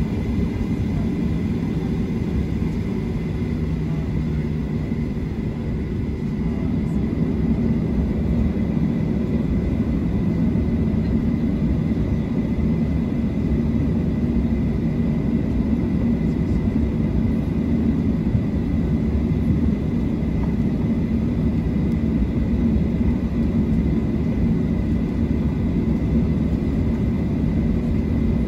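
Cabin noise of a Boeing 737-700 taxiing: a steady low rumble from its CFM56-7B engines at taxi power, with a faint steady whine above it, heard from inside the cabin. It swells slightly after about six seconds.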